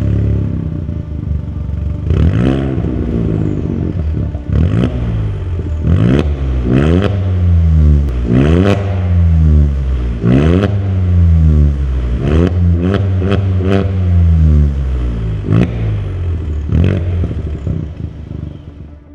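VW up! GTI's turbocharged 1.0 TSI three-cylinder engine, breathing through a full turbo-back performance exhaust with a de-catted downpipe, being blipped repeatedly from idle while stationary, about a dozen short rev rises and falls. Most blips end in a sharp pop or crack as the revs drop.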